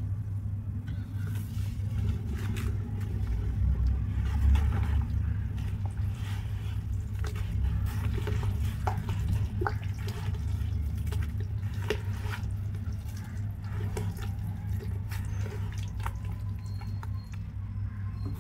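A hand swirling and squishing through watery charcoal-cement slurry in a bucket: sloshing and wet squelches with scattered small clicks, over a steady low hum.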